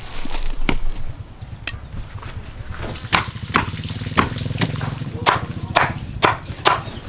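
A string of sharp kitchen-utensil knocks, a few in the first second and then about eight more roughly every half second from about three seconds in, over a low steady hum.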